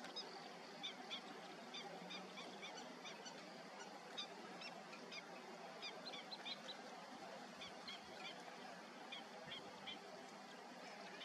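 Faint bird calls: short, high chirping notes in quick, irregular series throughout, over a steady outdoor hiss.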